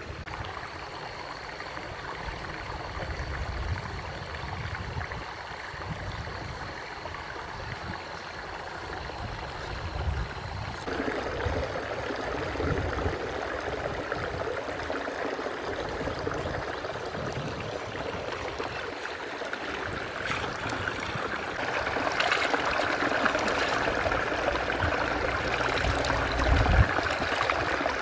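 A shallow stream running, growing louder and brighter in the last third, with splashing as hands work in the water near the end. A thin, steady high whine sounds through the first ten seconds, and a low, uneven rumble runs underneath.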